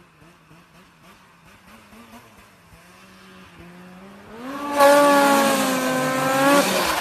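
Snowmobile engine approaching, faint at first, then revving up and going by close and loud about five seconds in, running at high revs until it drops away sharply just before the end.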